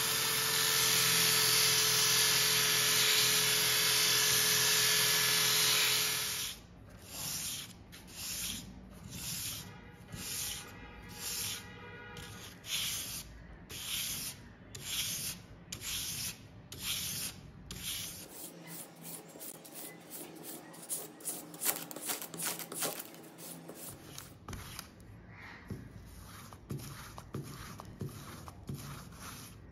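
An electric drill spinning an abrasive disc, with a knife blade ground against it for about six seconds. Then the blade is stroked back and forth on a sharpening stone, about one stroke a second, and near the end lighter strokes follow on a strop.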